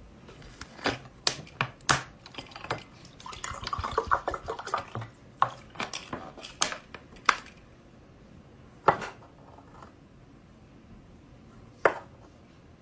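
Plastic water bottle handled with a series of sharp clicks and crinkles, then water poured from it into a drinking glass for a couple of seconds, followed by a few knocks of the bottle and glass on the table.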